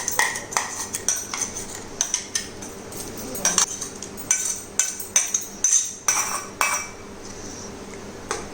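Metal spoon clinking and scraping against a cooking pot in a quick, irregular scatter of sharp clinks that stop about seven seconds in, leaving a faint steady hiss.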